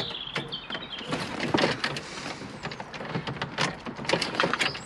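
Irregular clicks, taps and scrapes of a metal stereo mounting cage and its wiring being handled in a car's dashboard stereo aperture.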